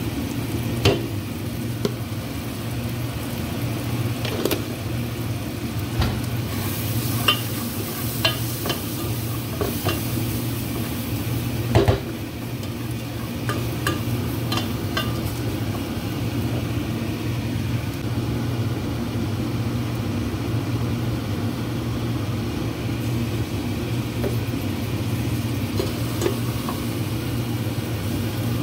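Onions and whole spices sizzling in oil in a stainless steel pot, stirred with a wooden spatula that scrapes and knocks against the pot several times, the strongest knock about 12 seconds in. The sizzle grows louder and hissier for a few seconds about a quarter of the way in, over a steady low hum.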